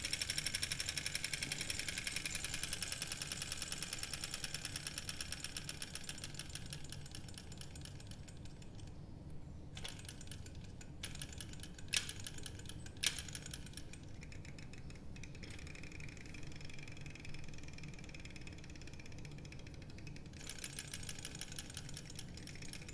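Small model Stirling engines running on one flame, their pistons and flywheels making a fast, even mechanical clatter. The clatter thins out about nine seconds in, with two sharp clicks a second apart, then comes back strongly near the end.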